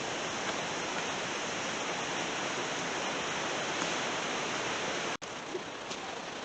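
Steady, even rushing hiss of outdoor noise. It drops out for a split second about five seconds in, then carries on slightly quieter.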